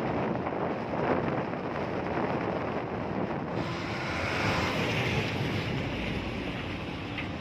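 Steady wind noise buffeting the microphone, a rough rushing hiss. About halfway through it turns brighter and higher.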